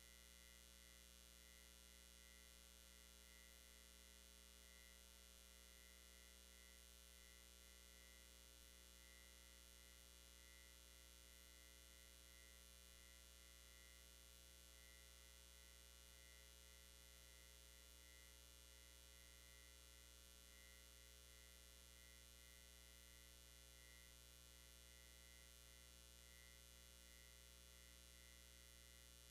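Near silence: a faint, steady electrical hum on the audio feed, with a faint high tone flickering on and off above it.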